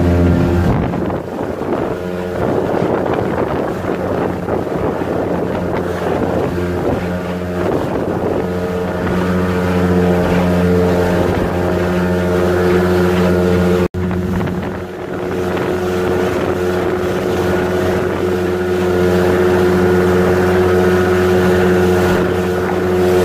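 Motor launch's engine running at a steady cruising speed, a constant droning hum. Wind buffets the microphone through the first half. The sound cuts out for an instant a little past the middle.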